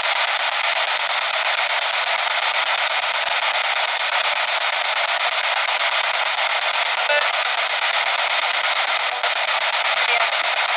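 P-SB7 spirit box sweeping through radio stations: a steady hiss of radio static from its small speaker, broken by brief faint snatches of sound about seven seconds in and again near the end, which the investigator takes for spirit replies, 'Heaven' and 'I'm here'.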